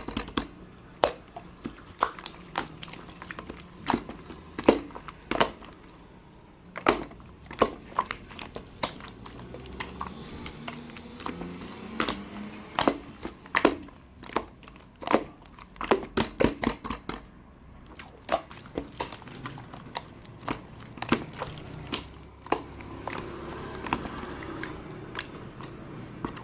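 Orange marbled slime being squished and pressed by hand, giving irregular sharp clicks and pops, sometimes in quick clusters.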